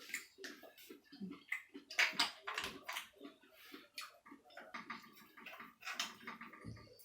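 A person eating spicy seafood: irregular wet clicks, smacks and chewing sounds, with sharper clicks from handling the food.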